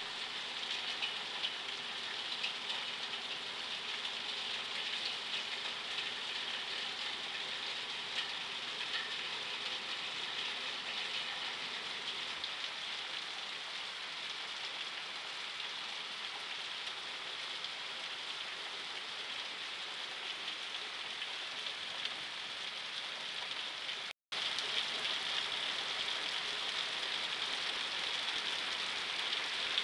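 Heavy rain falling steadily, a dense even hiss of a downpour. The sound cuts out completely for a split second a little past two-thirds of the way through.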